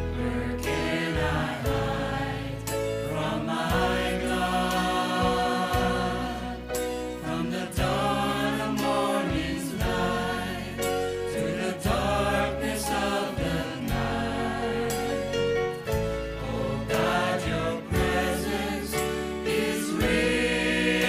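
Music: a choir singing a slow gospel song over held bass notes that change every couple of seconds.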